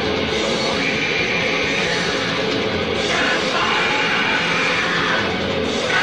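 Loud, dense hardcore punk with harsh noise: distorted guitars, bass and drums under a wall of noise electronics, its texture shifting about three seconds in.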